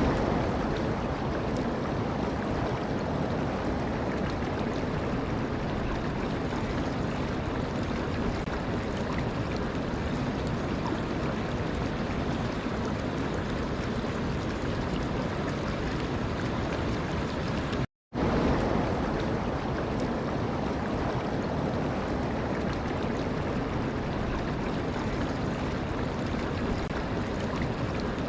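Steady rushing of running water, an even wash of noise with no rhythm of breaking waves. It cuts to silence for a split second about two-thirds of the way through, then resumes unchanged.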